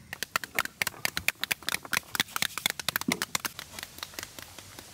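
Pomegranate halves being struck to knock the seeds out, the arils pattering into metal basins: a rapid, irregular stream of small clicks and taps.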